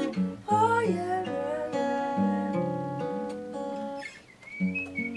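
Acoustic guitar playing the closing instrumental bars of a song, plucked notes and chords ringing out. Near the end the playing pauses briefly, then a chord rings on with a thin high tone above it.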